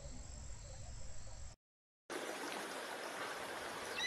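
Outdoor nature ambience. First a steady high insect trill with faint chirps over a low rumble, which stops dead about a second and a half in. After a brief silence, a steady rushing hiss takes over, and a short high bird call comes near the end.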